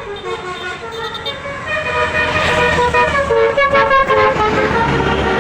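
Bus 'telolet' multi-tone musical horn playing a stepping melody of several notes at once, growing louder about two seconds in over the low rumble of the bus engine.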